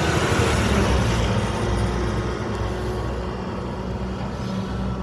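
Mack front-loader garbage truck driving past, its engine running under a broad rush of road noise that is loudest at the start and slowly fades.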